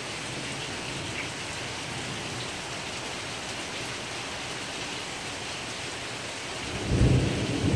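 Steady rain falling. Near the end, a low rumble of thunder swells in and grows louder, following a lightning flash.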